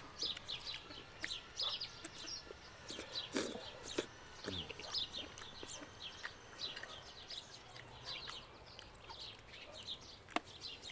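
Birds calling in an outdoor yard: many short, high chirps keep coming throughout, with a few lower clucking calls in the first half. A single sharp click, like a fork on a plate, comes near the end.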